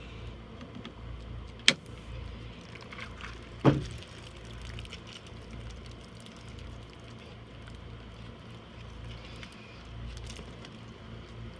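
PEX water tubing being cut without a proper PEX cutter: two sharp snaps about two seconds apart, the second ending in a short low thud, over a steady low hum.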